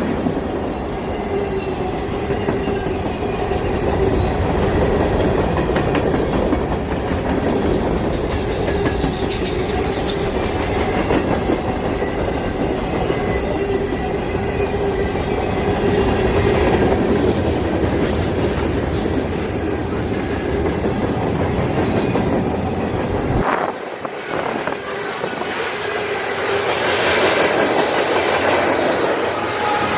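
Freight cars of a CSX manifest train rolling past, with steady wheel rumble and clickety-clack over the rail joints. About three-quarters of the way through, the deep rumble drops away suddenly. Thin wheel-squeal tones then come in near the end.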